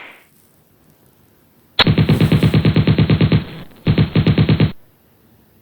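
Automatic gunfire sound effect: two bursts of rapid shots at about a dozen a second, a longer one of about a second and a half, then a brief pause and a shorter one.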